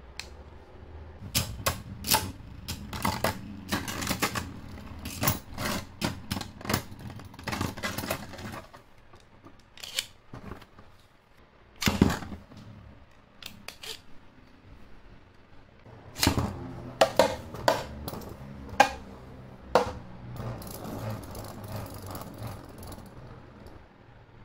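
Hard plastic clicking and clacking as Beyblade tops are fitted to their launchers and ripcords threaded in, in two bursts of rapid clicks with a louder knock between them. Near the end, two Beyblades spinning in a clear plastic stadium make a soft steady whir.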